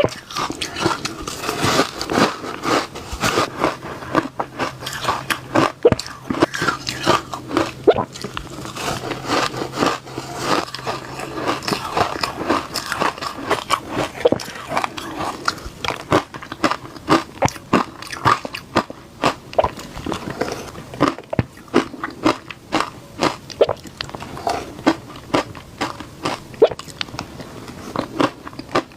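A person biting and chewing reshaved ice, heard up close. It is an unbroken run of crisp, rapid crunches, several a second.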